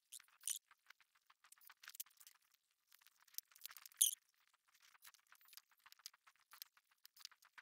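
Faint, rapid run of small clicks and taps as thin plywood boat panels and a cordless drill are handled and used on a workbench to drill stitch holes, with one sharper knock about four seconds in.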